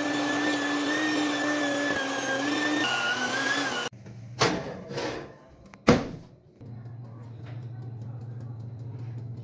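Electric hand mixer running steadily in cake batter, its pitch dipping slightly shortly before it cuts off about four seconds in. Then a few sharp knocks as a baking tin is set into an electric oven, followed by the oven's low steady hum.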